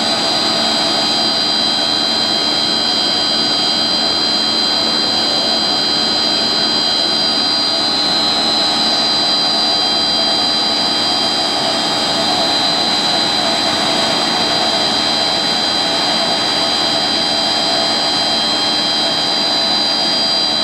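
ÖZM Ø60 HD 800 HDPE blown film extrusion machine running steadily: a constant even rush of machine noise with a steady high whine above it.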